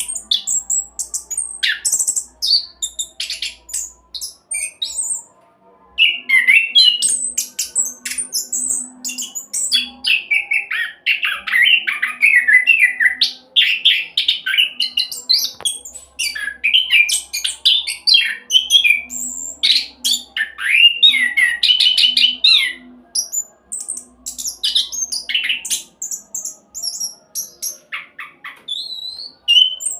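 Orange-headed thrush singing a fast rolling song of rapid, varied notes, with a short pause about five seconds in.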